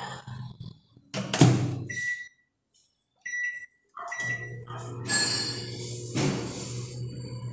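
Microwave oven door shut with a thud, then a few short keypad beeps as the time is set, and the oven starts running with a steady low hum as it heats a cup of plastisol.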